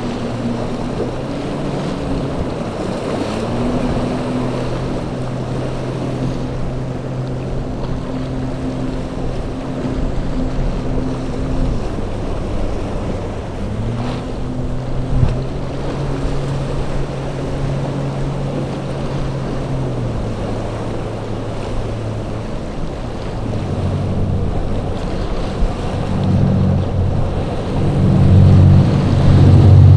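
Boat engine running through rough water, its pitch dipping and picking back up a few times as the throttle changes, over wind on the microphone and breaking waves. A louder engine builds over the last few seconds.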